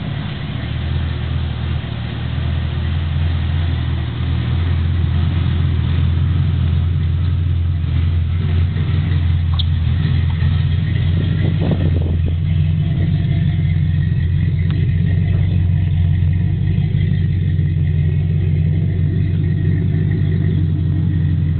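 Chevrolet Silverado pickup's 4.8-litre V8 idling steadily just after a cold start, a low rumble that grows a little louder over the first few seconds and then holds.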